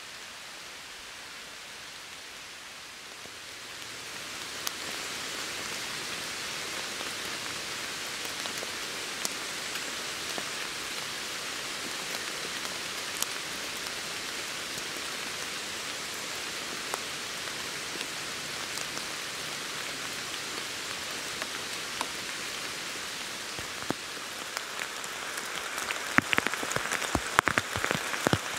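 Steady patter of rain, with scattered sharp drops and a cluster of louder crackles near the end.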